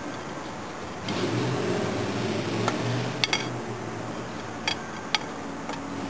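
Several sharp metallic clicks and taps of a screwdriver against the Weber 32/36 carburettor's top-cover screws: one a few seconds in, a quick cluster just after, then three single clicks. Under them runs a steady low hum.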